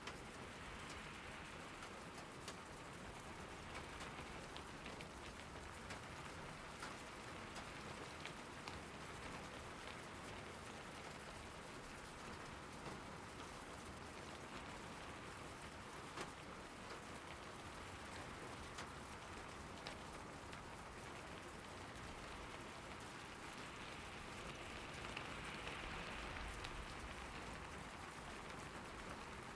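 Steady rain falling on surfaces, a continuous hiss with many separate drops ticking, swelling slightly near the end.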